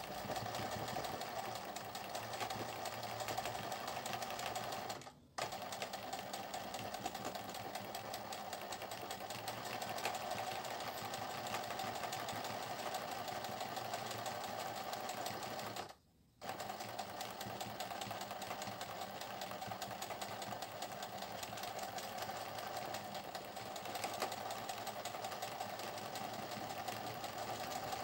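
Singer 20U industrial zigzag sewing machine running steadily as it stitches an appliqué. It stops briefly twice, about five seconds in and about sixteen seconds in.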